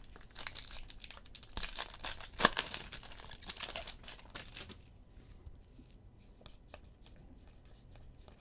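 The foil wrapper of a Donruss basketball card pack being torn open and crinkled for the first five seconds or so. After that it goes quieter, with a few faint soft ticks as the cards are handled.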